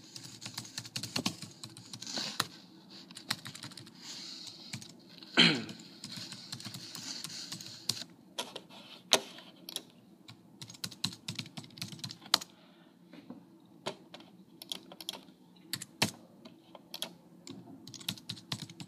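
Typing on a computer keyboard: irregular runs of key clicks, with one louder knock about five and a half seconds in.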